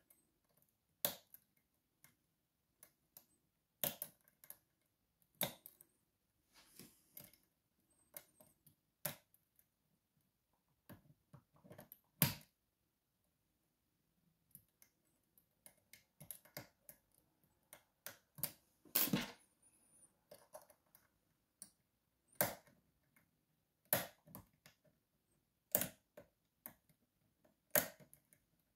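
Sharp metal clicks at irregular intervals, a second or several apart and some louder than others, with fainter ticks between, as a pick works the sliders of an Evva 3KS slider lock under tension.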